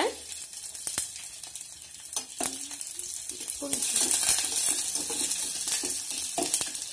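Tempering frying in hot sesame oil in a stainless steel pot: mustard seeds, curry leaves, a dried red chilli and chopped garlic sizzling and crackling as a steel ladle stirs them, with a few sharp clicks of the ladle against the pot. The sizzle grows louder about halfway through.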